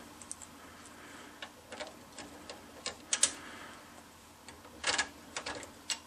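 Scattered light clicks and ticks of small fan-mounting screws being handled, with a few louder clicks about three seconds in and near five seconds in.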